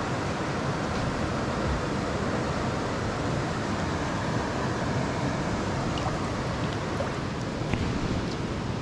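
Creek water rushing steadily over rocks, an even hiss with a couple of faint ticks near the end.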